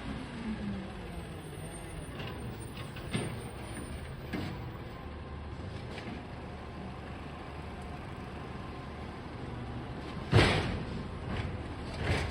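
Garbage truck running, a steady low engine sound with a falling tone at the start and a few knocks. A loud, sharp, hissing burst comes about ten seconds in, and a smaller one near the end.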